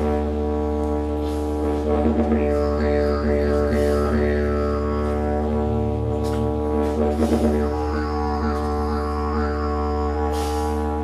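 Didgeridoo played as a continuous low drone, its tone colour shifting, with quick rhythmic pulses about two seconds in and again around seven seconds.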